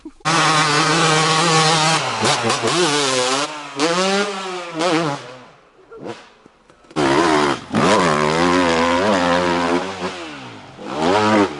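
Dirt bike engine revving hard, its pitch sweeping up and down again and again. It drops away briefly about halfway through, then revs up and down again.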